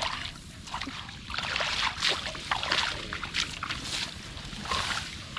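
Hands splashing and sloshing in shallow muddy water, a run of irregular splashes while groping for fish in the mud.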